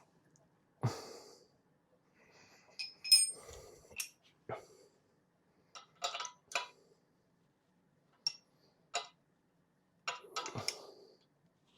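Metal tools and clamping parts being handled and set down on a milling machine's table: irregular clinks and knocks in small clusters, a few ringing briefly. The loudest clink comes about three seconds in.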